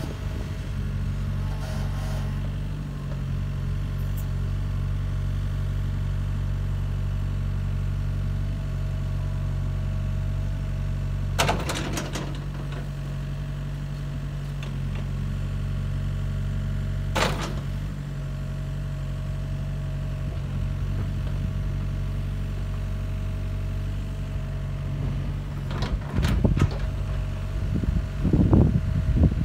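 Komatsu PC80MR-3 midi excavator's diesel engine running steadily while the boom, arm and bucket are worked, with a thin steady whine over the engine. There are sharp metallic clanks about 11 and 17 seconds in, and several louder ones near the end.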